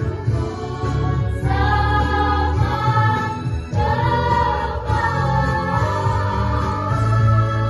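Junior high school choir singing long held chords, moving to a new chord every second or two.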